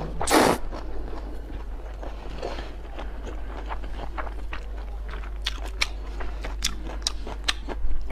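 A woman chewing a mouthful of noodles mixed with shredded raw vegetables close to the microphone: short crunches and wet mouth clicks, thickest in the second half. A brief loud rush of breath or slurping comes just after the start, over a steady low hum.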